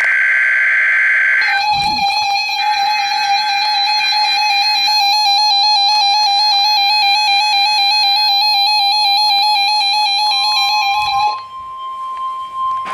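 Emergency Alert System tones of a NOAA Weather Radio Required Weekly Test. It opens with the end of a warbling digital data burst, the coded SAME header. Then a steady, wavering two-tone attention signal sounds for about ten seconds, and near the end a higher single alarm tone takes over.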